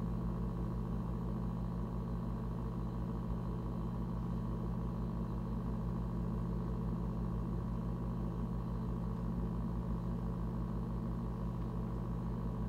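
Steady low mechanical hum with a fast, even flutter underneath, unchanging throughout.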